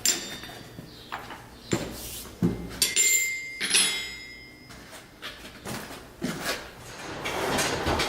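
Metal being struck and handled in a forge: a string of irregular knocks and clanks, two of them ringing on for about a second around three and four seconds in. A steady rushing noise builds near the end.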